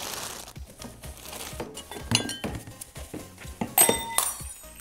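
Tissue and plastic wrapping crinkling as they are stuffed into a plastic storage box, with china and glassware chinking against each other. A few sharp clinks come about two seconds in and again near the end, the last ones ringing briefly.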